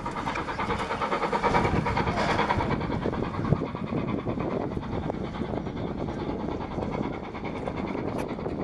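BR Standard Class 4MT 2-6-0 two-cylinder steam locomotive working hard as it hauls its train, its exhaust beating steadily.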